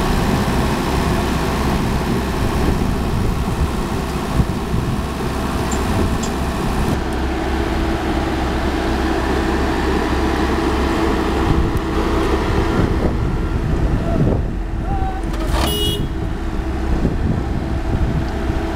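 Diesel engine of a Komatsu PC78 mini excavator running steadily close by. A steady higher hum joins about seven seconds in.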